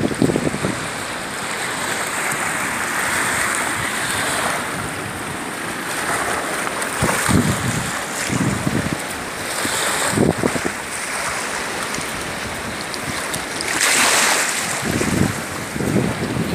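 Sea surf washing on the shore as a steady rush, with wind buffeting the microphone in gusts several times.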